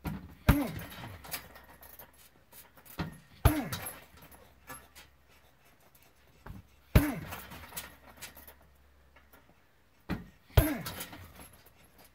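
A heavy punching bag struck by four hard kicks, about three and a half seconds apart, each a sharp thud followed by a short grunt that falls in pitch. The bag's hanging chain rattles after the hits.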